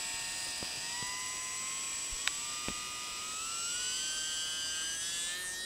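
Electric motor and propeller of an E-flite UMX Timber radio-control floatplane whining at full throttle on its takeoff run from the water, the pitch climbing steadily as it gathers speed. A few light ticks sit under it.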